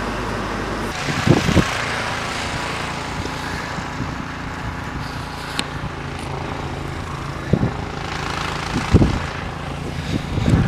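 An engine running steadily with a rushing hiss, and a few dull low thumps, during efforts to free a car buried in deep snow.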